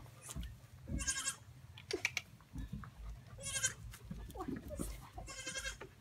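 Pygmy goat kid bleating three times, each a high-pitched call of about half a second, a couple of seconds apart.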